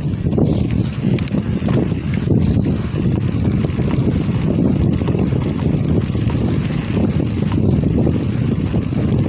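Steady low rumble of wind buffeting the microphone and a knobby bicycle tyre rolling on a concrete path while riding, with a few faint clicks.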